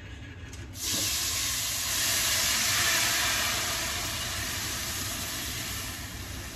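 Food hitting a hot pan and sizzling. The sizzle starts suddenly about a second in, swells, then slowly dies down.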